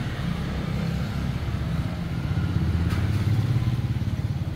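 A motorcycle engine running close by, a steady pulsing hum that swells a little past three seconds in and then eases off, with one light knock about three seconds in.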